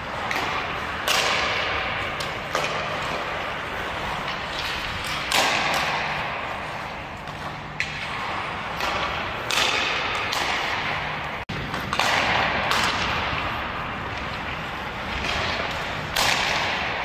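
Ice hockey skate blades scraping and carving across the ice in repeated hissing strokes, each starting sharply and fading over about a second, over a low steady hum.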